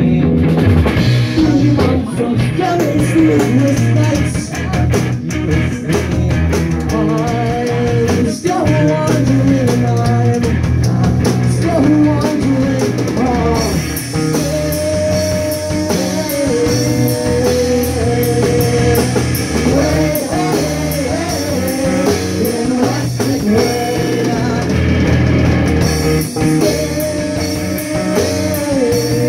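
Live rock band playing loud: distorted electric guitar, bass guitar and drum kit, with a male voice singing over them. The cymbals come in brighter about halfway through.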